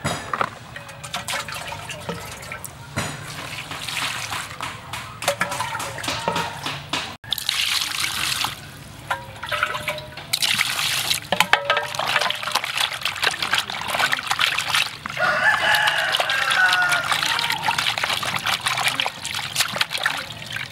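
Water sloshing and splashing in a plastic basin as hands rub and rinse raw squid, with wet squelching and dripping. Chickens call in the background at times.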